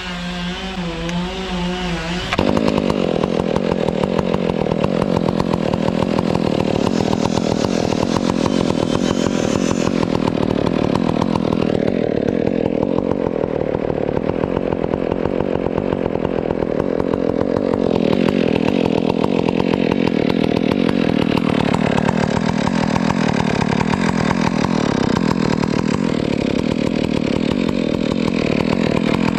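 Stihl chainsaw running at lower revs with a wavering note, then about two seconds in opening up to full throttle and running steadily under load, cutting into a Canary Island palm trunk.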